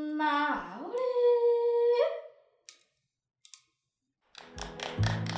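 A woman's unaccompanied voice sings the closing notes of an Ainu yaysamanena lyric song: a long held note, a swoop down and back up, then a higher held note that ends about two seconds in. After a short near-silent pause, a fast, even tapping with a steady low tone starts near the end.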